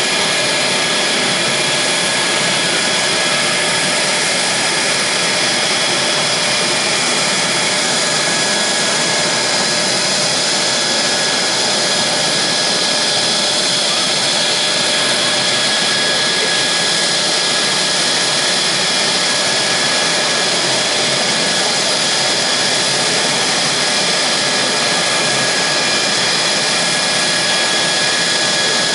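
Mitsubishi F-2's single General Electric F110 turbofan running steadily on the ground: a loud, constant jet whine with several high steady tones over dense noise, not changing in pitch or level.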